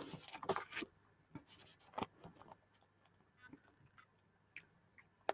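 Sheets of printed card stock rustling and sliding against each other as they are shuffled by hand: a short rustle at the start, then a few faint scrapes and taps.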